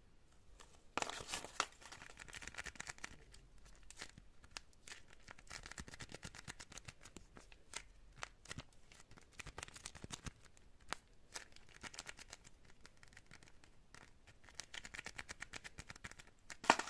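Fidget board toys being worked by hand: a run of small clicks and snaps, with scratchy stretches about a second in and near the end, and a sharp loud click just before the end.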